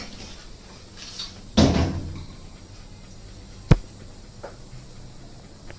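Washing machine top cover being slid back into place: a short scraping thump, then a sharp loud click about two seconds later and a faint tick.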